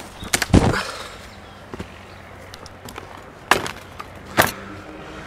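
Fight hits: a cluster of heavy thuds about half a second in as a body goes down onto the grass, then two sharp smacks of kicks near the end, about a second apart.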